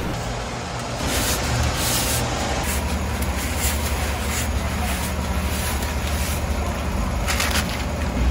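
A large aluminium pot of water boiling hard on a burner: a steady low rumble, with short bursts of hiss about a second in and again near the end.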